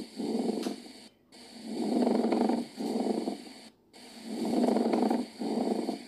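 Recorded pleural friction rub played as a stethoscope lung-sound sample: a rough rubbing noise on both breathing in and breathing out, over three breaths with a short pause after each. It is the sign of inflamed pleural surfaces rubbing against each other.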